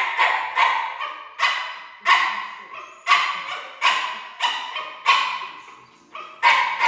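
A dog barking over and over: about ten sharp barks at a steady pace of one or two a second, each with a short echo.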